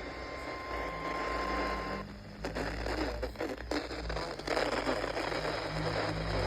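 Weather-radio warning alert tone, one steady high pitch heard through heavy hiss, cutting off about two seconds in; crackly static and a low hum follow, the gap before the automated voice reads a severe thunderstorm warning.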